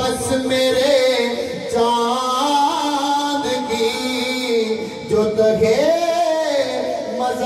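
A man singing a naat into a handheld microphone, holding long drawn-out notes, with a wavering rise and fall in pitch about six seconds in.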